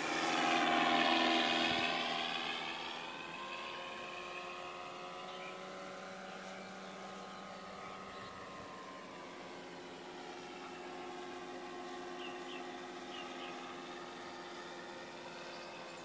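Radio-controlled Gipsy Moth model biplane in flight, its Benedini sound module playing a recorded Tiger Moth engine sound over the propeller. It is loudest as the model passes close about a second in, then runs steadily as it flies off.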